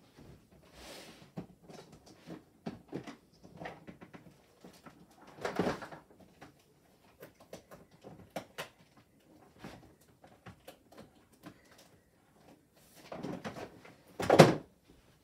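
Someone rummaging through things while searching: scattered clicks, small knocks and rustling, a heavier thump about five and a half seconds in, and the loudest knock near the end.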